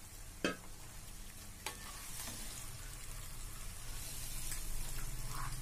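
Raw chicken pieces sizzling in hot oil with onions and spices while a wooden spatula stirs them, with two short knocks of the spatula against the pan in the first two seconds. The sizzle grows louder near the end.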